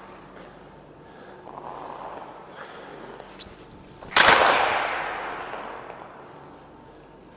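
A slapshot with a Bauer Hyperlite 2 composite hockey stick: one loud, sharp crack about four seconds in as the blade strikes the ice and puck, echoing for a couple of seconds around the empty ice rink. Before it, quieter scraping of skates on the ice.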